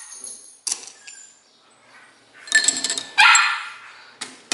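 Dogs yipping in short bursts a few times, while dry kibble rattles as it is poured from a plastic cup onto a plate.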